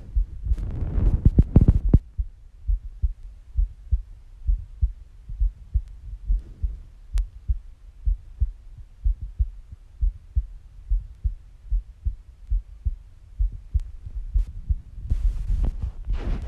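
A woman's heartbeat recorded up close: a steady run of low, regular thumps. Louder scratchy handling noise covers the first two seconds and comes back near the end.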